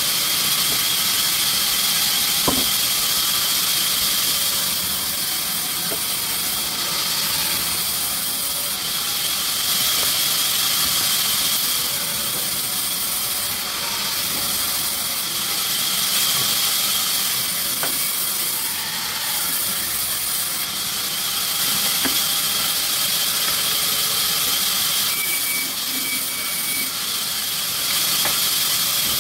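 Sawmill machinery running with a steady high-pitched hiss, with a few faint ticks.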